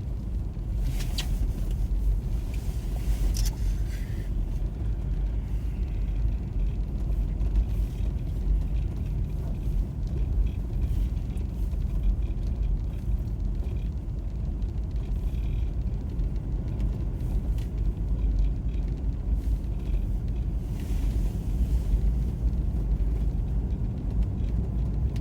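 Steady low rumble of a car heard from inside its cabin, the engine and road noise continuous.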